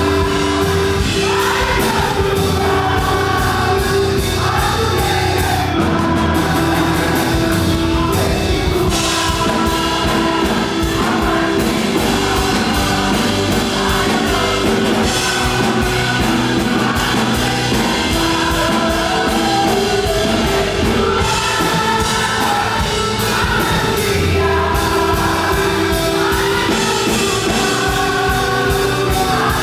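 Live up-tempo gospel worship music: a group of voices singing over a band with drums and a sustained organ or keyboard chord.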